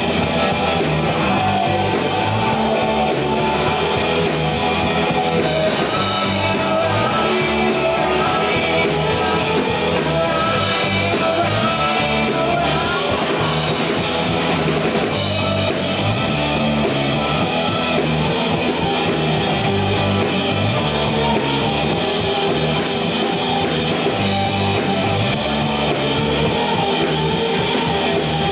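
Rock band playing live: two electric guitars, electric bass and a drum kit, with a male lead vocalist singing over them. The music stays loud and even throughout.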